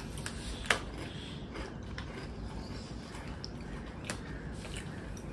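Faint, irregular crunching of a potato chip being chewed, with a sharper crack just under a second in.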